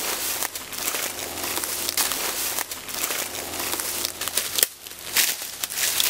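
Dry leaves and twigs crunching and crackling as someone pushes hurriedly through forest undergrowth: a dense run of short, sharp rustles.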